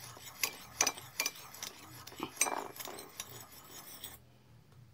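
Metal spoon clinking and scraping against a ceramic bowl while stirring vanilla powder into a little water: irregular sharp clinks that stop about four seconds in.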